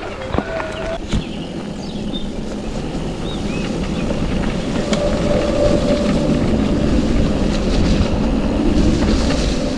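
Mountain bike riding over gravel and dirt trail: tyres rolling and the bike rattling over the rough ground. A faint steady whine runs through the second half.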